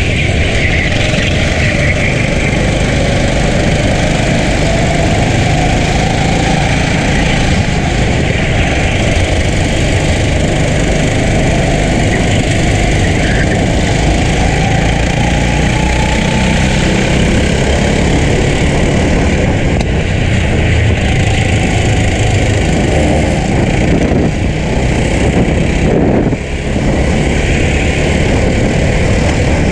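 Racing kart's engine running hard at speed, its pitch rising and falling with the throttle through the corners, under a constant rush of wind noise. The sound dips briefly about 26 seconds in.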